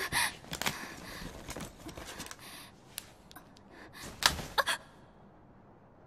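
A young woman's short, anxious gasps and breaths, with clicks of a flip phone being opened and its keys pressed; the sharpest clicks come in a quick cluster about four seconds in.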